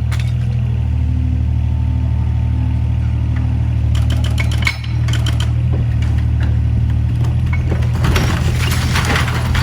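Diesel excavator engine running steadily, with bursts of clattering about four seconds in and again near the end.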